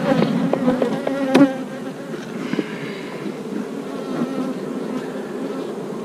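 Honey bees buzzing around an open hive, a steady hum. A few sharp knocks sound in the first second and a half, the loudest about a second and a half in.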